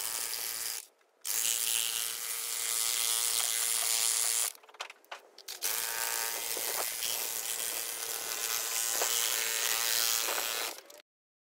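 Electric power tool motor running with a steady buzzing whine, in three runs: it stops briefly about a second in and again at about four and a half seconds, then cuts off near the end.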